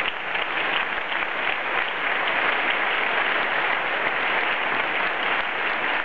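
Theatre audience applauding, a dense steady clapping from many hands.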